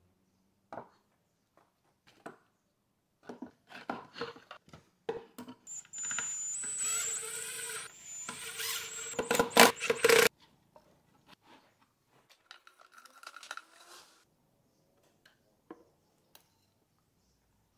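Cordless impact driver driving a screw into a melamine router-table top: a steady motor whine with sharp peaks for about four seconds that cuts off suddenly. Before and after it come scattered knocks and clicks from handling the wooden parts.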